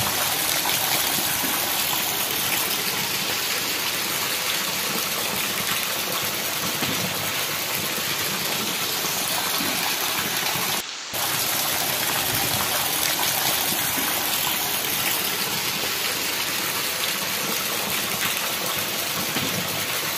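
Heavy rain pouring down onto concrete ground, with rainwater running across it: a steady, dense hiss. It breaks off for a moment about halfway through, then carries on unchanged.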